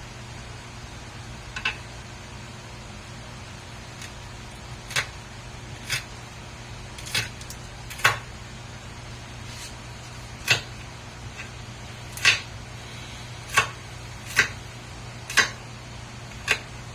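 Kitchen knife cutting garlic and onion on a chopping board: sharp single knocks at an uneven pace, about one every second or so, over a steady low hum.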